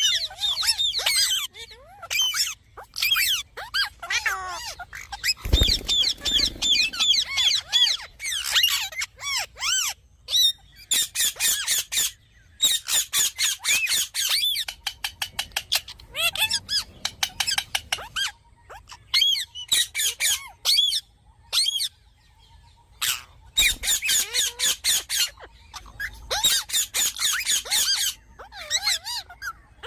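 Indian ringneck parakeet calling: rapid runs of high-pitched chirps and squawks in bursts of a second or two, with short gaps between them.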